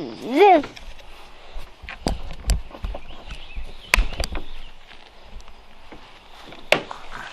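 A toddler's short wavering vocal sound, then scattered knocks and clicks, the sharpest about four seconds in and again near the end.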